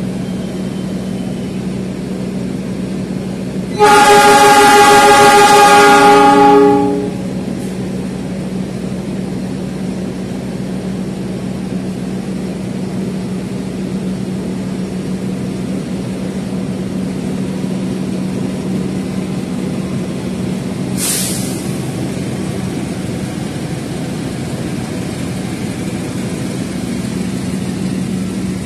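Train horn sounding one long, loud blast of about three seconds, then the steady rumble of a long passenger train rolling past, with a constant low hum under it. A short hiss comes about two-thirds of the way through.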